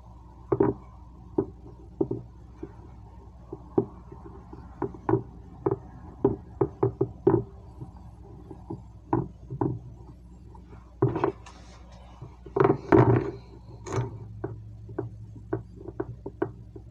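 Irregular light knocks and taps of hands pressing dough into a metal muffin pan, the pan bumping on a tile counter, with a louder flurry of knocks about two-thirds of the way through.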